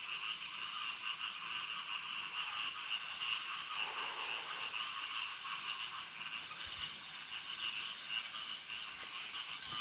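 Steady night chorus of frogs and insects, a dense, fast trilling. A faint, brief lower sound comes about four seconds in.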